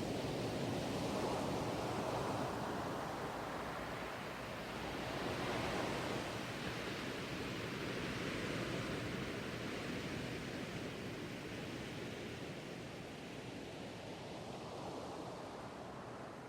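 Ocean surf: a continuous rush of waves that swells and eases every few seconds, fading out near the end.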